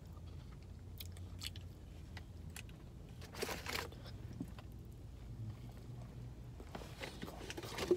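Close-up chewing and biting of fast food, likely a McDonald's McChicken sandwich, with small scattered mouth clicks and a steady low hum underneath.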